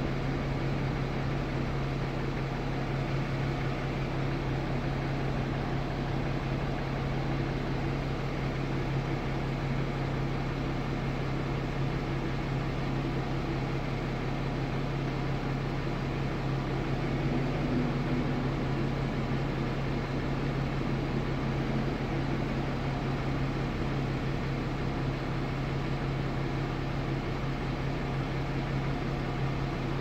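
Steady mechanical hum inside a car's cabin with a constant low tone and no change in pitch.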